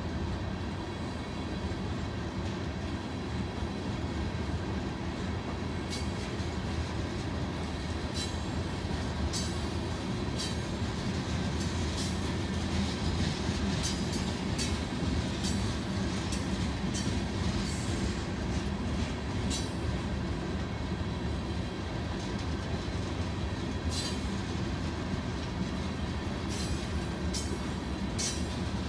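Loaded freight train of aggregate-rock hopper cars rolling past with a steady low rumble. From about six seconds in, short sharp high squeaks and clicks from the wheels come repeatedly over it.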